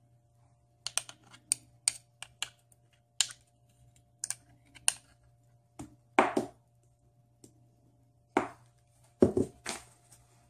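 Spoon scraping and clicking against the inside of a crab paste jar while scooping the paste out: a run of quick sharp clicks, then a few louder knocks near the end.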